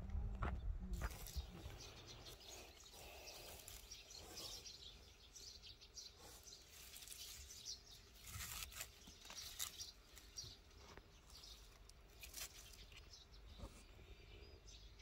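Faint rustling and light handling of garlic bulbs in a plastic mesh sack, with scattered short high ticks and chirps.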